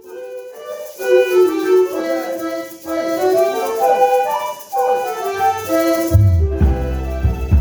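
Live ensemble music: a melodic passage in wind-like lines over little or no bass, with the bass and percussion coming back in strongly about six seconds in.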